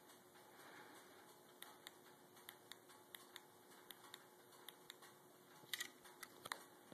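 Near silence: faint room hiss with a low steady hum, and from about a second and a half in, irregular sharp ticks, the loudest two near the end.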